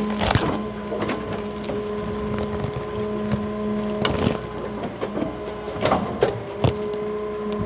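Large excavator working, a steady engine drone with several sharp knocks.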